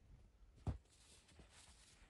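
A single footstep crunching in snow about two-thirds of a second in, followed by faint rustling.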